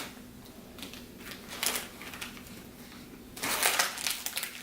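Plastic toy packaging crinkling and rustling as it is handled and opened, with a louder burst of crinkling about three and a half seconds in.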